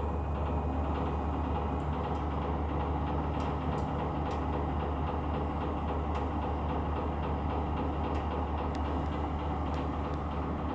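Corona KCF-G4617BY kerosene fan heater running with a steady low hum and scattered faint clicks, the 'koron koron' rolling rattle that the owner reports as an abnormal noise.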